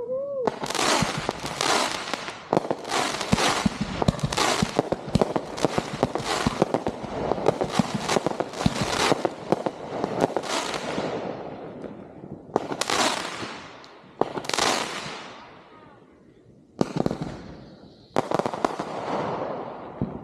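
Consumer (1.4G) fireworks going off: a dense run of rapid-fire aerial bursts with crackling tails for about ten seconds, then four separate bursts spaced a couple of seconds apart, each dying away.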